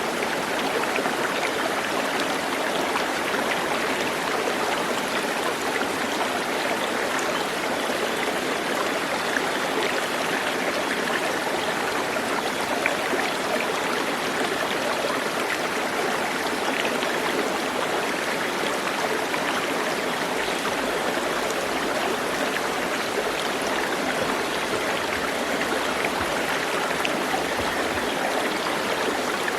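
Running water, a steady even rush like a stream, with no clear bird calls standing out.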